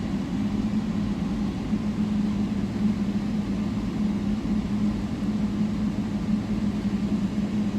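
Steady hum of a bus running, heard from inside its cabin: an even low rumble with a constant droning tone.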